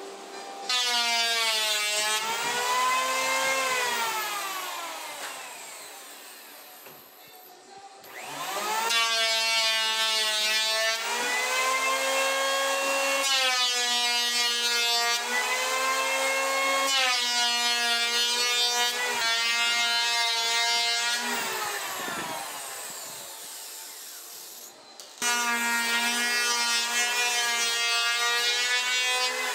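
Corded handheld power tool working the wooden window trim in three runs. Each run starts suddenly and holds a steady whine whose pitch wavers as the tool bears on the wood. The first two wind down with falling pitch before the tool starts again.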